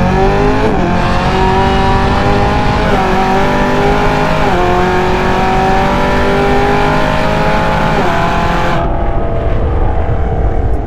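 Hennessey Exorcist Camaro ZL1's supercharged 6.2-litre V8 at full throttle, its pitch climbing through the gears of the 10-speed automatic. There are quick upshifts about a second in, around three and four and a half seconds, and near eight seconds. The engine note softens just before nine seconds as the pull ends.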